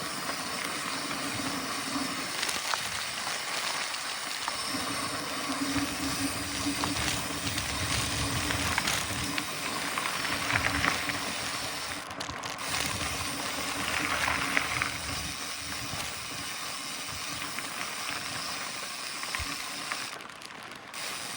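Mountain bike riding along a dirt trail: a steady hiss of wind and tyres rolling over the ground, with a steady low hum running for a stretch through the middle.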